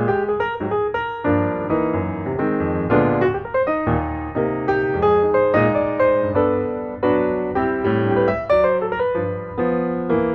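Background music: solo piano playing a steady run of notes and chords.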